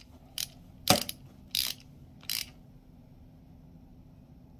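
Hand ratchet clicking four times, about two-thirds of a second apart, as it turns the press screw of a block-style roller-chain breaker to push a link pin out; it falls quiet about halfway through.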